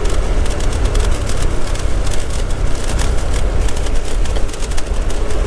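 Steady rumble of a moving vehicle with wind buffeting the action-camera microphone.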